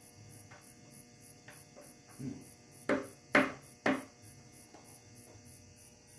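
Hammer blows on metal under the engine: three sharp strikes in quick succession about three seconds in, with a few lighter taps before. Faint high insect chirps repeat about three times a second throughout.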